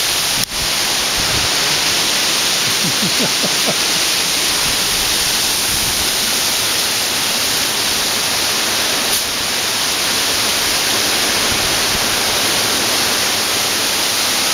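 Strong wind rushing through the front-yard trees: a loud, steady hiss that hardly lets up, with a brief click and drop about half a second in.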